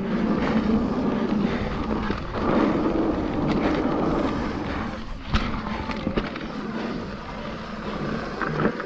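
Mountain bike riding a dirt trail: the tyres roll and rattle steadily over the ground, with scattered knocks from the bike over bumps and one sharp knock about five and a half seconds in.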